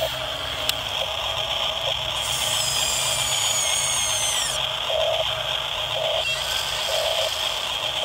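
Small electric gear motors of an RC Volvo excavator and an RC bulldozer whirring steadily as they push and dig gravelly sand, with a higher motor whine that falls in pitch between about two and four and a half seconds in.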